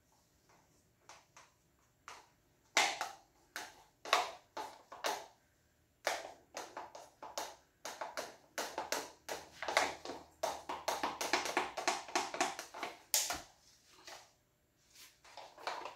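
Wooden stir stick clicking and scraping against a plastic cup of acrylic pour paint, a quick irregular run of light taps that grows busier in the middle, with a sharper knock near the end.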